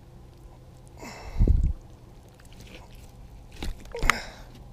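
Close handling noises from a hand working a trout in a rubber-mesh landing net: a heavy low bump about a second and a half in, then two short sharp knocks near the end.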